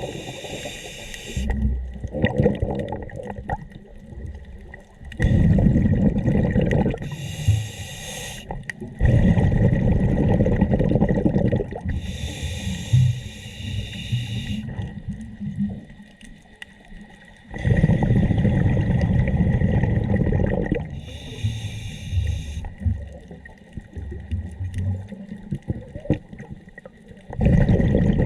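A scuba diver breathing through a regulator underwater. A short hissing inhale is followed each time by a longer low rumble of exhaled bubbles, and the cycle repeats several times.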